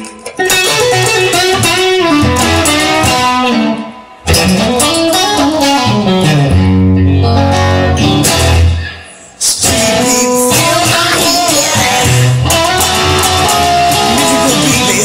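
Guitar-led music with a bass line and gliding melody notes. It breaks off briefly three times.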